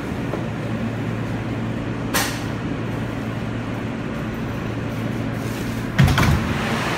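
Steady hum inside an R143 subway car, with a short hiss about two seconds in. Near the end the car's side doors open with a loud thump and a few clicks.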